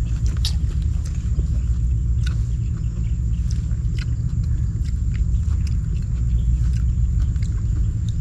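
A steady low rumble runs throughout, with scattered light clicks and taps over it.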